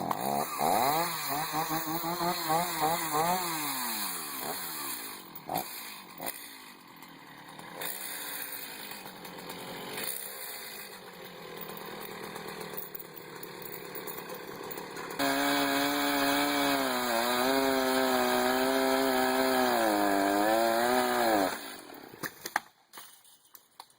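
Chainsaw running, its pitch rising and falling as it revs and bogs down. It is loud for the first few seconds, quieter through the middle, then loud again for about six seconds before cutting out shortly before the end.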